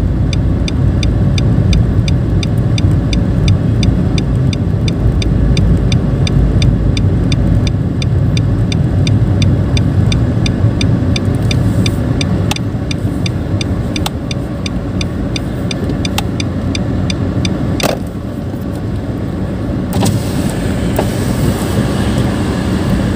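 Cabin of a Nissan March 1.2 with its three-cylinder engine running under the steady rumble of engine and road noise. For the first half the turn-signal indicator ticks about three times a second, then stops. Near the end the hiss of traffic outside grows louder.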